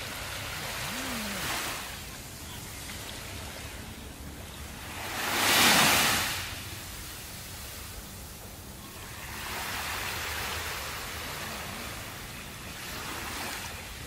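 Small waves breaking and washing up on a sandy beach, coming in as swells of surf about every four seconds, the loudest about halfway through.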